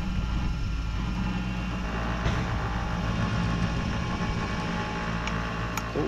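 Bench grinder's electric motor running steadily with no load, a steady hum, while a sawmill band blade is readied at the wheel. A couple of light ticks near the end.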